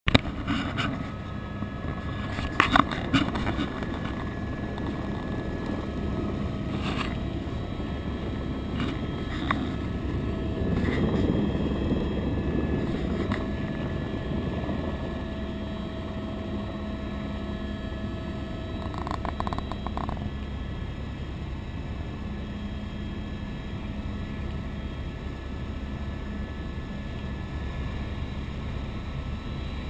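Helicopter engine and rotor running steadily as it lifts off and climbs away, heard from inside the open-door cabin as a steady rumble. A few sharp clicks and knocks come in the first ten seconds, and the sound swells slightly about eleven seconds in.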